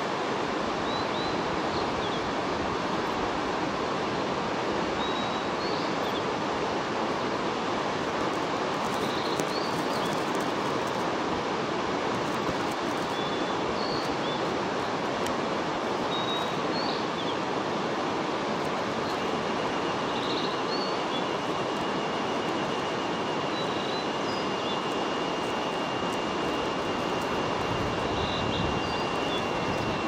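Blue-and-white flycatcher singing short whistled phrases, faint under a loud steady rushing noise. From about twenty seconds in, a thin, even trill runs unbroken for roughly ten seconds.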